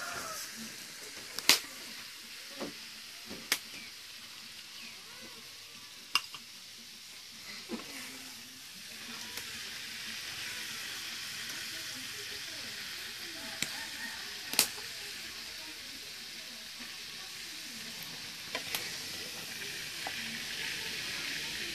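Grubs frying in hot oil in a steel wok, a steady sizzle that grows louder about nine seconds in. A metal spatula knocks and scrapes against the wok several times as the grubs are stirred and scooped out.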